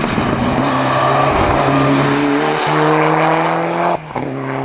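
Mitsubishi Lancer Evolution rally car's turbocharged four-cylinder engine pulling hard up a wet hillclimb, its pitch climbing with a brief break about two and a half seconds in. Near the end the sound breaks off abruptly and a steadier engine note follows.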